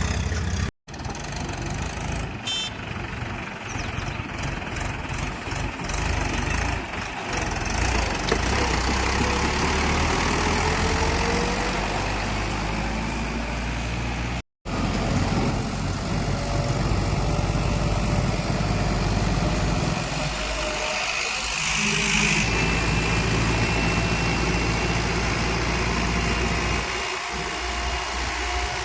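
Diesel engines of tractors and a backhoe loader running steadily, with two abrupt cuts in the sound.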